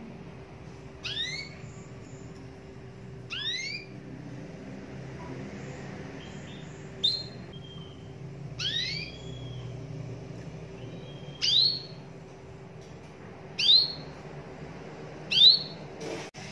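Domestic canary giving seven short, rising whistled call notes, one about every two seconds, rather than a continuous rolling song. A faint steady hum lies underneath.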